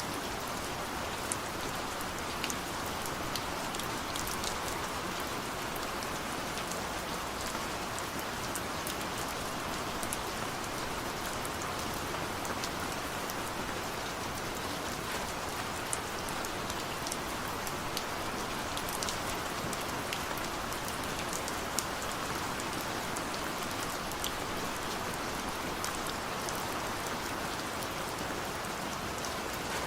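Heavy rain falling steadily, with sharp individual drops ticking now and then.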